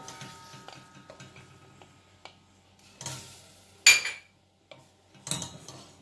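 Wooden spatula stirring and scraping soft melting butter in a stainless steel saucepan, with scattered small clicks against the pan. Just before four seconds in there is a sharp knock with a brief metallic ring, the loudest sound.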